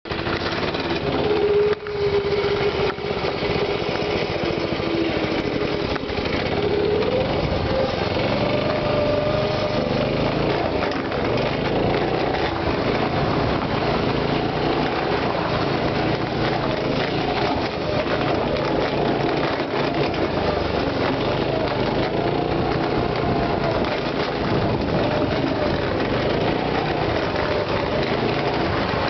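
Go-kart's small engine running under way, its pitch rising and falling again and again as the throttle opens and eases, over a steady rushing noise.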